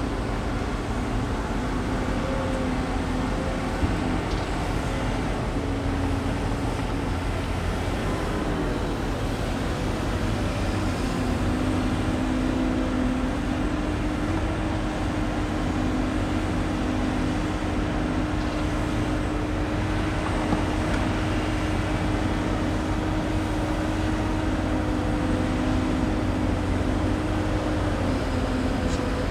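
Heavy diesel excavators working: engines running steadily under load with a held hydraulic whine that steps up in pitch about a third of the way in and drops back near the end.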